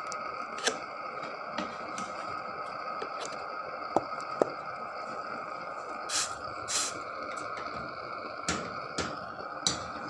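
Kitchen utensils being handled: about a dozen scattered short clicks and knocks, the sharpest about four seconds in, over a steady hum.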